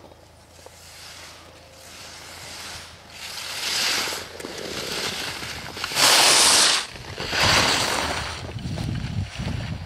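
Ski edges carving and scraping on hard-packed snow through slalom turns: a run of hissing swells about a second apart, the loudest about six seconds in.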